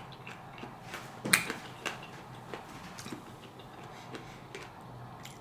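Faint, scattered clicks and taps of someone eating from a bowl of fruit, with one sharper click a little over a second in.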